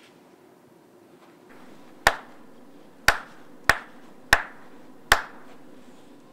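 Five sharp hand claps, unevenly spaced about half a second to a second apart: kashiwade, the ritual clapping of a Shinto prayer.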